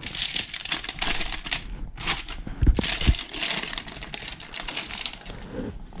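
Aluminium foil crinkling and crackling as a foil pack is handled and its edges folded, an irregular run of small crackles.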